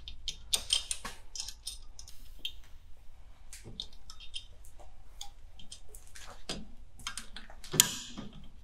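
Small metallic clicks and scrapes of pliers working a brake-shoe hold-down spring and pin on a VW Polo's rear drum brake, with one sharper click near the end.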